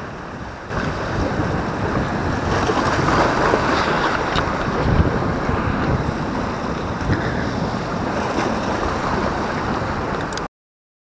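Small waves washing and splashing over shoreline rocks, with wind buffeting the microphone. The sound stops abruptly near the end.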